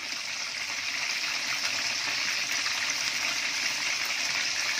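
Boneless fish pieces deep-frying in hot oil in an aluminium karahi: a steady, even sizzle of oil bubbling around the fish.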